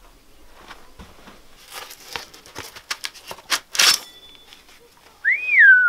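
Rotten pine stump wood cracking and tearing as a hatchet is hammered and pried into it, with scattered knocks and a loud splintering crack just before four seconds in. Near the end a loud high squeal glides up and then falls.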